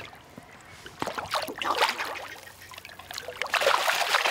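A hooked fish thrashing at the surface beside the boat, splashing water in two bouts, the louder one near the end as it is lifted out with a lip grip.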